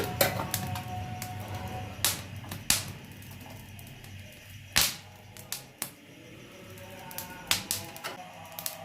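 Soft background music with about ten sharp clicks and knocks at uneven intervals: kitchen handling as ginger is set on a gas stove to roast.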